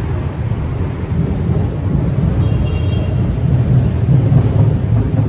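Loud, steady low rumbling noise, with a faint high-pitched tone briefly about two and a half seconds in.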